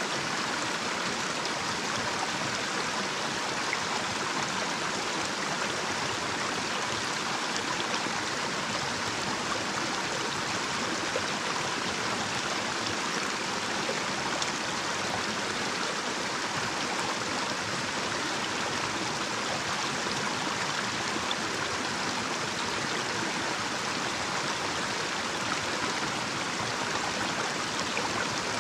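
Small, shallow stream running over a little cascade: a steady, even rush of water with no breaks, brightest in the upper range.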